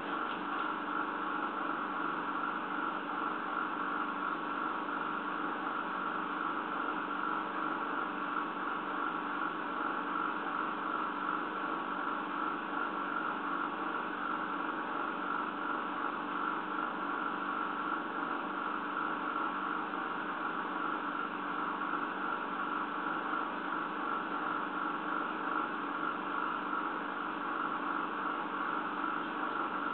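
Steady background hum and hiss that never changes, with no knocks, steps or voices.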